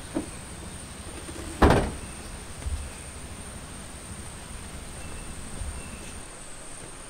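A car's rear tailgate pulled down and slammed shut, one loud bang about a second and a half in, followed by a few faint knocks.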